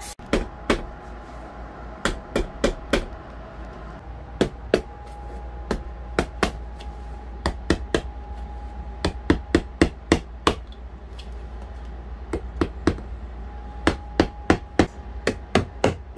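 Rubber mallet tapping the handle of a blue-handled tool to drive new headliner fabric into the gap along a wooden trim board. The taps are sharp and come in quick groups of two to four with short pauses between.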